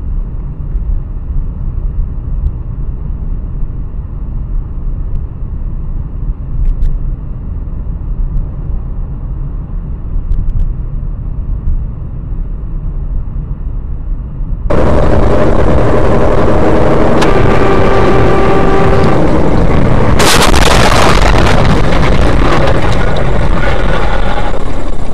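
Road and engine noise heard inside a moving car's cabin, a steady low rumble. Partway through it switches abruptly to much louder, harsher road noise with a held horn-like tone for about two seconds, followed by a sharp crash-like impact.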